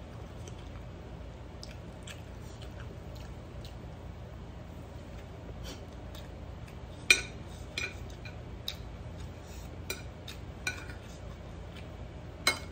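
Metal spoon clinking and scraping on a ceramic plate while eating. There are a handful of sharp clinks in the second half; the loudest is about seven seconds in and another comes near the end, over a faint steady low hum.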